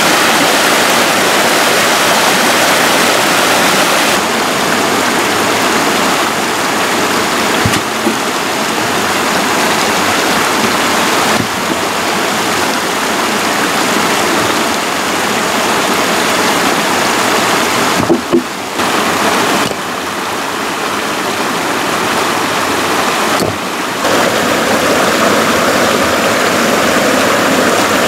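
A shallow rocky stream rushing and cascading over rocks: a steady, loud rush of water that steps up and down in level a few times.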